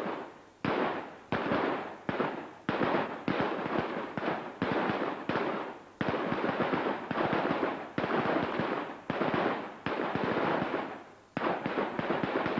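Rifles firing single shots at will from a line of prone shooters on a range. The sharp, irregular cracks come about two a second and sometimes overlap, each trailing off in a short echo.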